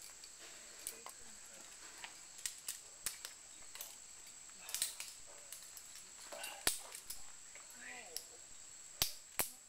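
Scattered sharp metallic clicks from quickdraws and carabiners clinking on a climber's harness as he moves on the rock. The clicks come irregularly, with the two loudest close together near the end.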